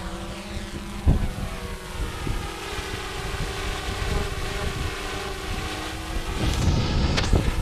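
GoPro Karma quadcopter's propellers spinning up and then holding a steady multi-tone whine. Gusting wind buffets the microphone, with a knock about a second in and heavier rumble and knocks near the end.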